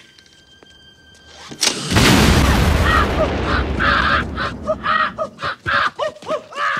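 A sudden loud boom with a long low rumble about two seconds in, followed by a man's short, repeated yelling cries over the continuing noise.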